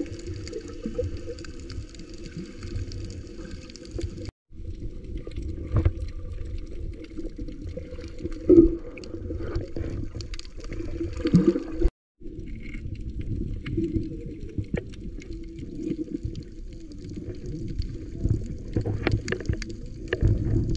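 Muffled underwater sound from a camera below the surface: a low, murky rumble of moving water with gurgling and small clicks, in three stretches separated by two brief dropouts where the footage cuts.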